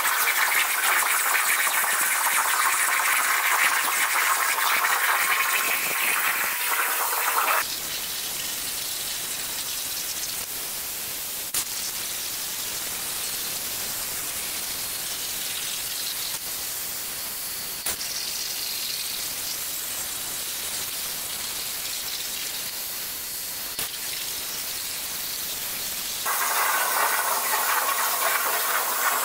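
CNC plasma torch cutting 3 mm mild steel plate at 35 amps: a steady hiss of the plasma arc and air. It drops to a softer hiss about seven seconds in and comes back up near the end.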